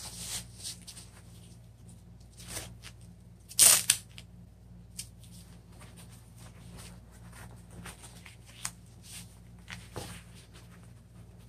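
Hook-and-loop (Velcro) straps on protective pads being ripped open and pressed shut, with fabric rustling in between; the loudest rip comes about three and a half seconds in.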